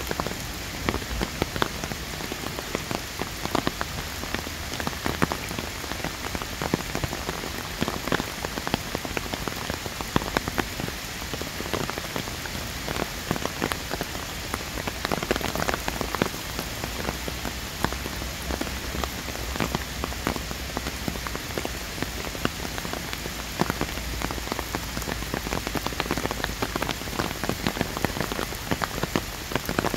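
Steady rain falling, with many separate drops ticking sharply close by.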